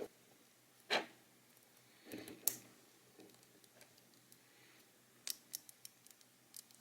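Light plastic clicks and taps from the parts of a disassembled Delux M618 Plus vertical mouse being handled and fitted back together: a sharp click about a second in, a couple more about two seconds in, then a run of small ticks near the end.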